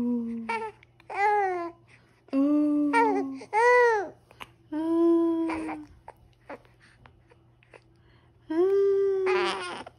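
A mother and her one-month-old baby trading drawn-out cooing vowel sounds, several of them rising and then falling in pitch, with a pause of a couple of seconds midway and a rougher, breathier sound near the end.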